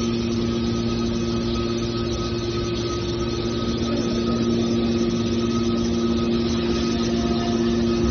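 Metal baler's hydraulic power unit running steadily: a constant machine hum with a fixed whine over it, no change in pitch or load.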